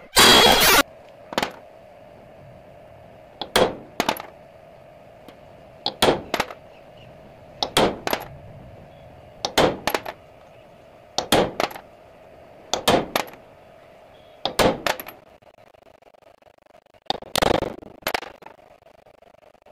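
A hammer striking steel number punches, stamping a chassis number into an e-rickshaw's steel frame: sharp metallic strikes in groups of two or three, about nine groups in all, one every couple of seconds. It opens with a loud clatter lasting under a second.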